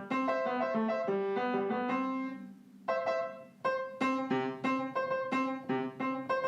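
Background keyboard music, a piano-like melody of ringing single notes. It thins almost to nothing about two and a half seconds in, then resumes with repeated notes.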